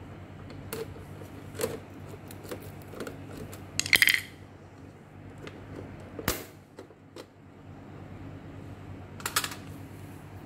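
Small clicks and knocks from a screwdriver and the plastic lamp cover of an Epson EB-W01 projector as the cover screw is undone and the cover lifted off. About four seconds in, a metal screwdriver clatters with a brief ring onto the tile floor, and a second ringing clatter comes near the end.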